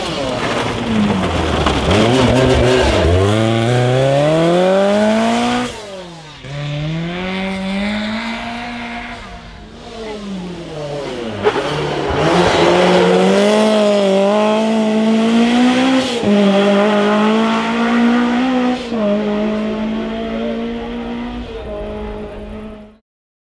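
Historic rally car engine driven hard, revving up through the gears with the pitch climbing, dropping at each shift and lift-off, and climbing again. The sound cuts off suddenly near the end.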